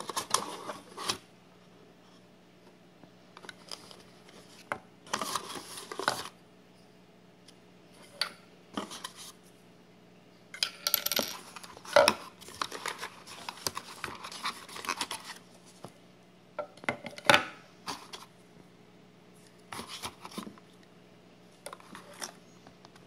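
Unboxing handling sounds: plastic parts and tubing lifted out of a cardboard box and set down on a stone countertop, with scattered rustling and scraping of cardboard and a few sharp plastic clicks and knocks.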